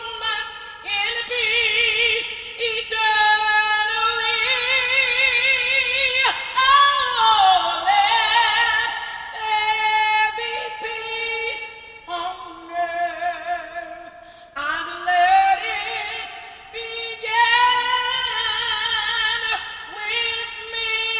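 High school choir singing held notes with vibrato, the voices moving from note to note and the phrases breaking briefly about twelve and fourteen seconds in.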